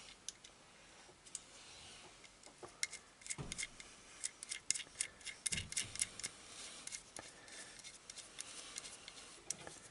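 Small metal parts of an ATV starter motor's brush holder, its terminal bolt and washers, clicking and clinking as they are handled and fitted by hand. A few single ticks, then a quick run of clicks in the middle with a couple of soft knocks, and a few more clicks near the end.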